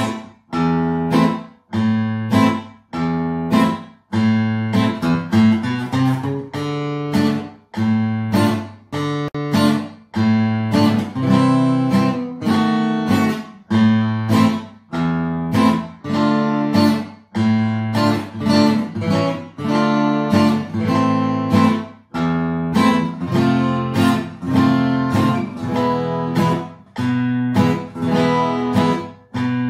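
Takamine steel-string acoustic guitar strummed in a steady hasapiko rhythm, chord accompaniment in A minor at about 100 bpm.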